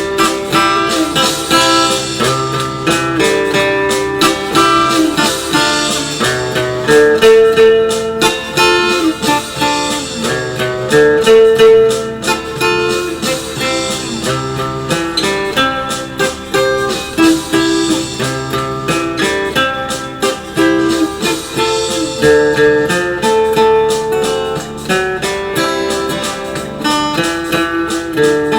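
Background music: acoustic guitar playing a plucked melody over chords.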